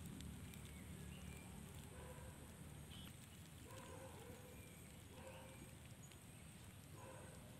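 Quiet outdoor ambience: a low steady rumble with a faint hiss, and several faint short animal calls from about two seconds in.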